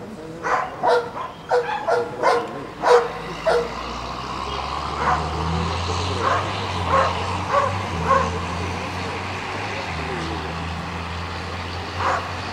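A working dog barking repeatedly at a man it is guarding at bay: about eight sharp barks in quick succession over the first four seconds, then fewer, weaker barks. A steady low hum, like an engine, runs under the later barks.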